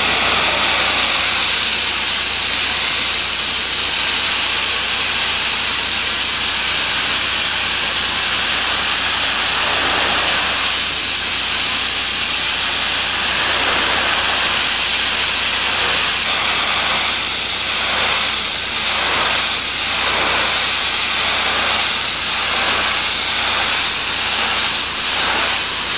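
Pressure-washer lance jetting water onto a painted pavement surface: a loud, steady hiss of spray. In the second half the hiss pulses roughly once a second.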